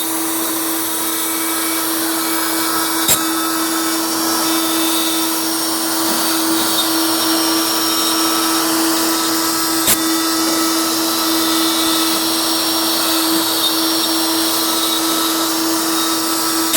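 A machine tool running steadily with a constant hum and hiss, with two sharp clicks about seven seconds apart.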